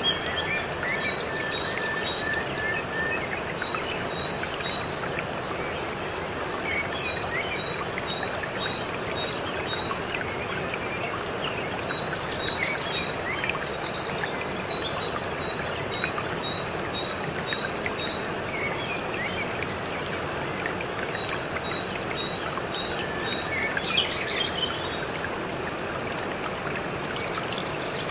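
Waterfall's rushing water, a steady even hiss, with birds chirping over it in runs of short high notes and occasional quick trills.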